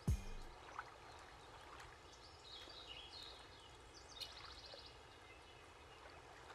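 A low thump at the very start, then faint outdoor ambience: a steady soft rush with birds chirping now and then and a quick trill in the middle.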